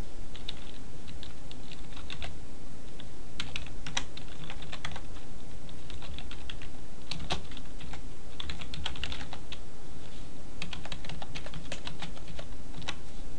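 Typing on a computer keyboard: short runs of rapid keystrokes with brief pauses between them.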